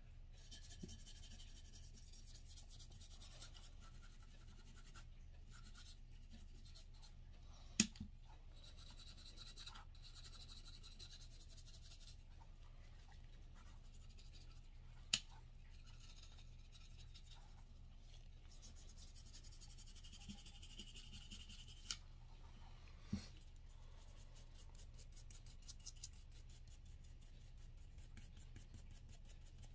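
Small cleaning brush scrubbing the parts of a field-stripped Walther CCP pistol, a faint scratchy rubbing that comes and goes. A few sharp clicks stand out, the loudest about a quarter and half of the way through.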